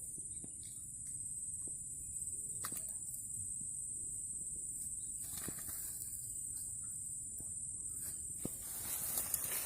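Outdoor riverside ambience: a steady low rumble under a steady high-pitched insect drone, with a few sharp clicks. Rustling handling noise starts near the end.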